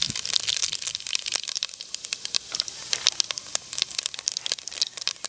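Fennel and cumin seeds sizzling in hot oil in a clay pot: a fast, dense run of small crackles and pops over a steady hiss.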